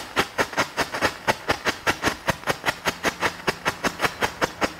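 World Class Flashing Signal ground strobe firework burning, giving a steady, even run of sharp pops, about eight a second.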